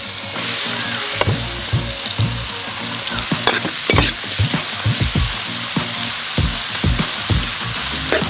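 Sliced onions sizzling in hot oil and melted margarine in a metal wok, hissing most strongly in the first second as they hit the fat. A metal ladle stirs them, scraping and clinking against the pan several times.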